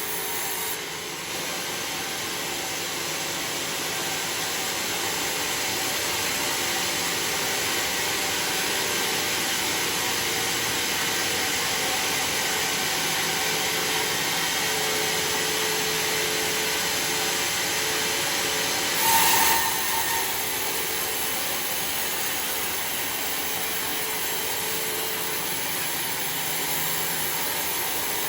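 Homemade sawmill's saw cutting through a log of red bayur wood: a steady, noisy whine, with a short louder burst about two-thirds of the way through.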